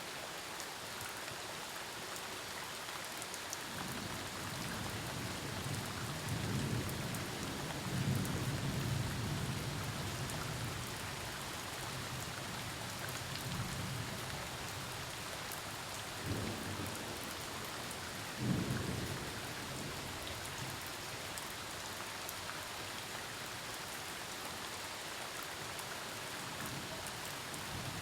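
Steady rain falling during a thunderstorm, with thunder rumbling in the low range from about four seconds in to about fifteen seconds, then two shorter claps of thunder a couple of seconds apart, around sixteen and eighteen seconds in.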